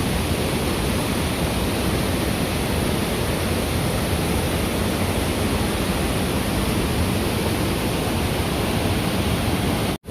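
Waterfall: a loud, steady rush of falling water close by, with a split-second dropout just before the end.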